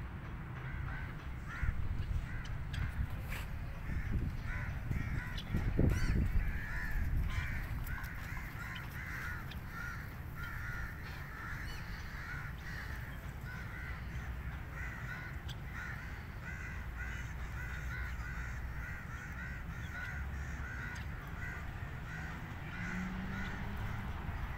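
Birds calling over and over, short calls a few a second, over a steady low rumble, with a stronger low thump about six seconds in.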